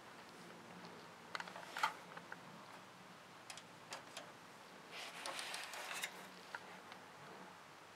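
Handling noise from a hand on a hi-fi tuner and the camera: scattered light clicks and taps, with a short burst of rustling and clicks about five seconds in.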